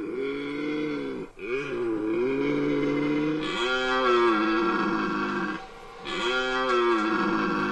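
Red deer stag roaring in the rut: a series of long, drawn-out bellows with brief pauses between them, the vocal challenge stags use to size up rivals and advertise to hinds.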